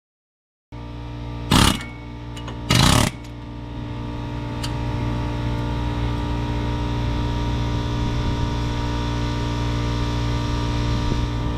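Pneumatic air hammer fired in two short bursts, a brief one and then a slightly longer one about a second later, hammering a stubborn ball joint out of a Ford Super Duty steering knuckle, over a steady machine hum that comes in suddenly.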